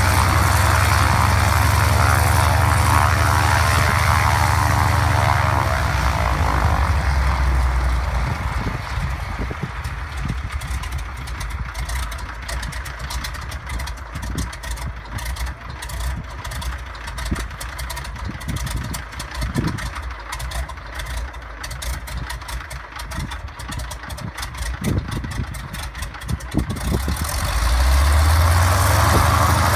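Radial engine and propeller of a DHC-2 Beaver floatplane running on the water. It runs loud and steady at first, drops back to a low idle between about six and eight seconds in, then picks up again with a rising pitch near the end.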